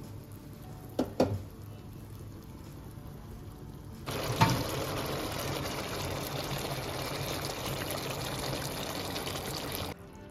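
Coke-and-soy-sauce braising liquid bubbling and sizzling around chicken wings as it cooks down to a glaze in the pan. It comes in suddenly and loudly about four seconds in and cuts off near the end. A couple of sharp knocks come about a second in.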